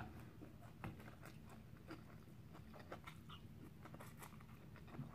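Faint chewing of rice noodles, with scattered soft clicks and small mouth noises.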